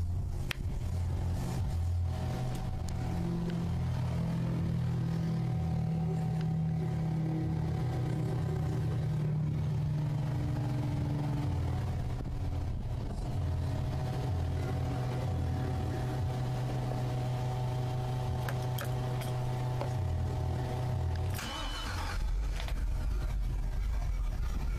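A boat engine running steadily at idle with an even, pitched hum. Near the end a brief rush of noise comes in, and the hum gives way to a lower rumble.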